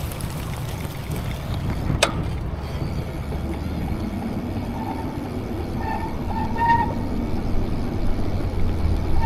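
Steady low wind and road rumble on the camera microphone while riding a Redline BMX bike, with a sharp click about two seconds in and a few short high beeps a little after the middle.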